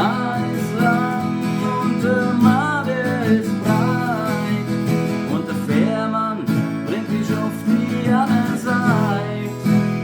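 Strummed acoustic guitar playing a steady rhythm, with a sung melody over it in short phrases.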